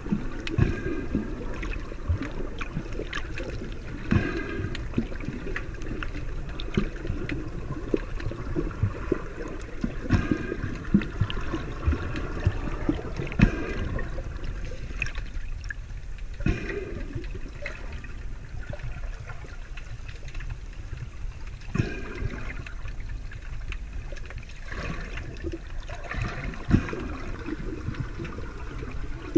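Water gurgling and sloshing, heard from underwater: a steady low rush broken every few seconds by short bubbly bursts, quieter for a while past the middle.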